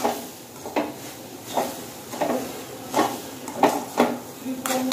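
Metal spoon scraping and knocking against a metal kadhai while stirring grated carrots in ghee, a stroke about every half to one second.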